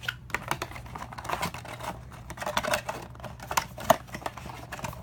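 Trading card packaging being handled and opened: rustling, crinkling and tearing with many small sharp clicks, the sharpest about four seconds in.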